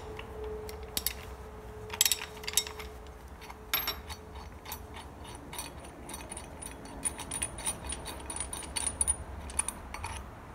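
Ratchet wrench clicking as it turns a hold-down bolt inside an aluminium piston on a milling-machine table, with scattered metal clinks and knocks from the socket and parts.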